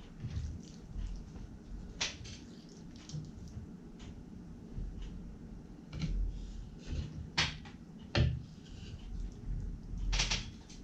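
Boning knife cutting through a Spanish mackerel fillet on a plastic cutting board: soft wet cutting and handling sounds, with a few sharp knocks of the blade or fish against the board.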